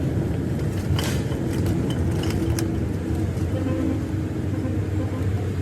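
A machine running steadily with a low hum, with a few light sharp clicks or taps over it.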